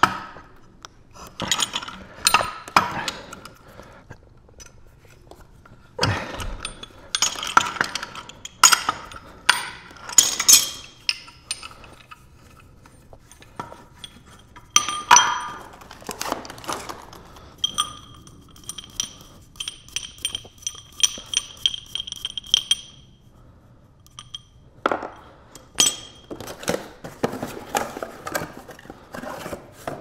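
Steel wrenches clinking and clanking against gas pipe fittings and each other while the pipe is worked off the furnace gas valve and the tools are set down, in irregular clusters of sharp metallic knocks. A few seconds past the middle comes a run of quick, evenly spaced ringing ticks.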